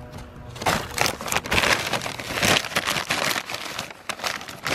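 Brown paper takeout bag crinkling and rustling as it is handled, a dense run of crackles starting about half a second in.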